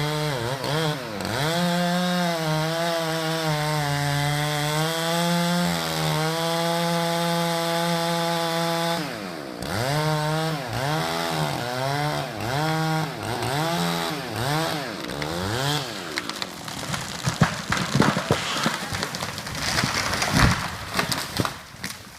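Two-stroke chainsaw running at high revs and cutting, its pitch dipping under load. It then falls and rises in a run of about one-second surges. About sixteen seconds in the saw note stops, and a run of sharp cracks and snaps follows.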